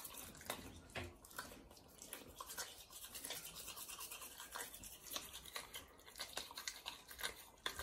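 Toothbrush bristles scrubbing a dog's teeth, in faint, quick, irregular strokes with dog toothpaste.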